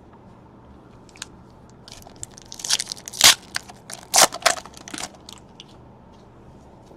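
Crinkling and crackling of trading-card packaging being handled, in a cluster of sharp crackles from about two to five seconds in.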